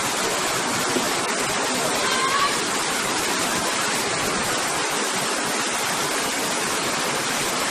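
Steady rushing of flowing water, like a waterfall or fast stream, an even, unbroken hiss.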